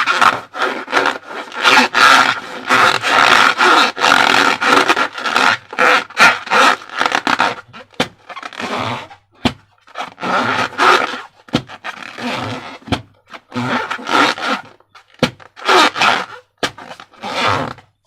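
Slime-filled rubber balloons squeezed and rubbed by hand, making noisy rubbing and squelching in irregular bursts with brief pauses and a few sharp clicks.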